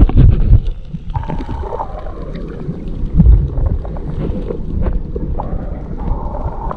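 Shallow sea water heard underwater through an action camera: low rumbling surges, loudest at the start and again about three seconds in, with scattered small clicks throughout.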